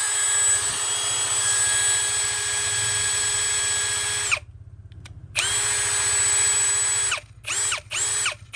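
Ridgid R86115 18V brushless cordless hammer drill running with no load, a steady motor whine. There is one run of about four seconds, a short pause, a second run, then several quick trigger pulls near the end, each rising in pitch as the motor spins up and falling as it stops.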